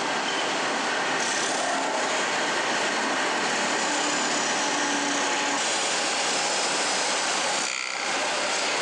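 Spinning pot-finishing lathe running with a steady rushing, rubbing noise as a metal scourer and gloved hands scrub the inside of the turning pressure-cooker pot with water. The noise dips briefly near the end.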